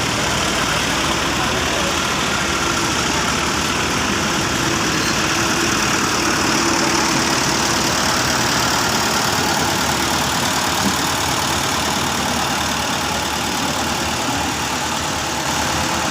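Diesel engine of road-paving machinery running steadily.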